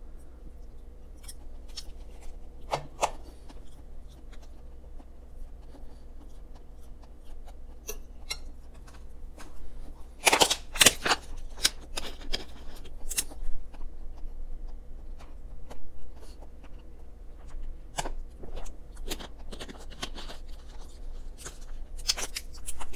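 Close-miked eating sounds: a person chewing with wet mouth clicks and smacks. There is a cluster of louder sharp clicks and knocks about ten seconds in.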